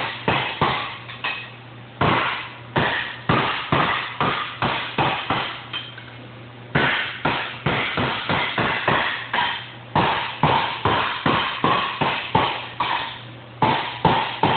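Hand hammer striking sheet steel on a shaping stand, in quick runs of light ringing taps, about three to four a second, broken by short pauses. The blows are shrinking ruffles out of a quarter-panel edge to turn it over, with the hammer dropped rather than swung hard.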